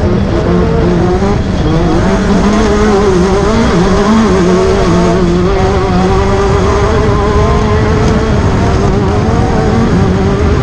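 Class 10 off-road race car engine running hard and continuously, its pitch wavering slightly up and down with the throttle.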